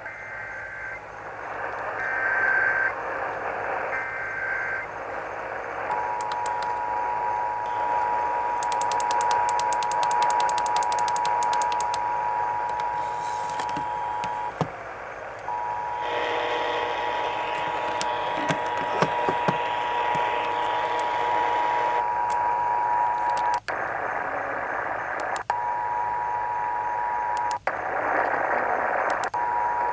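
Emergency Alert System Required Monthly Test received on AM radio. It opens with three short screeching bursts of SAME header data, then the two-tone attention signal (853 and 960 Hz together) holds steady for several seconds at a time, broken by brief gaps and dropouts. AM static and hiss with scattered crackles run underneath.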